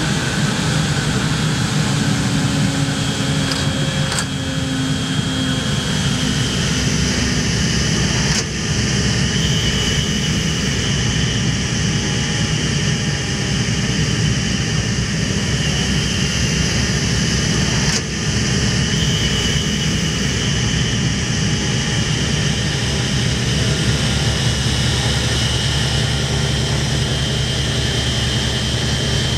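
Boeing B-29 Superfortress's four Wright R-3350 radial piston engines and propellers heard from inside the cockpit: a loud, steady, deep drone. One tone in it falls in pitch over the first several seconds.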